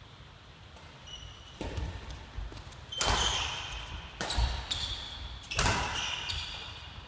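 Badminton rally: about four sharp racket hits on the shuttlecock, roughly a second and a half apart, echoing in a large hall, mixed with footfalls and short high shoe squeaks on the wooden floor.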